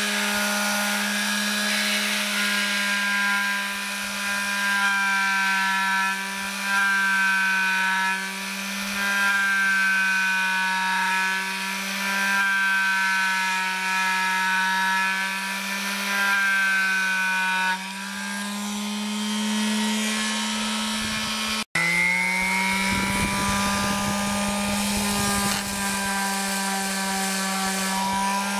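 Electric detail sander with a triangular pad running steadily while sanding a wooden window sash: a constant motor hum with a buzzing overtone, its pitch wavering slightly. The sound cuts out for an instant about three-quarters of the way through, then carries on.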